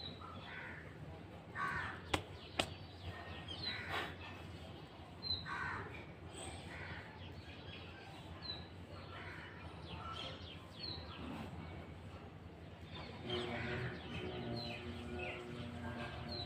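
Crows cawing outdoors, one short harsh call every few seconds, with small high chirps from other birds. Two sharp clicks come about two seconds in, and a steady low hum joins near the end.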